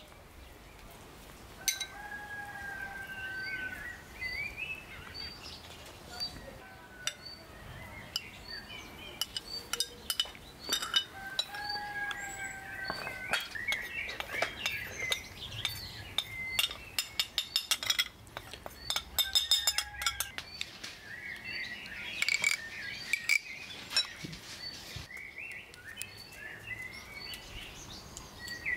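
Garden birds singing, with whistled and chirping calls throughout. A metal spoon clinks and scrapes against glass bowls, with a quick run of clinks about two-thirds of the way through.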